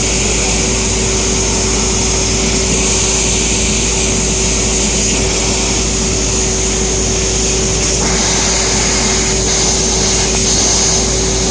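EKS Laser ESF-3015GT 1 kW CNC fiber laser cutter running: a steady hiss with a constant hum, with a slight change in the hiss about eight seconds in.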